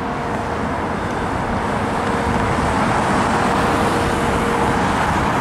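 Road traffic: vehicle engines running and tyres on the road, growing louder about two seconds in, with a faint steady hum underneath.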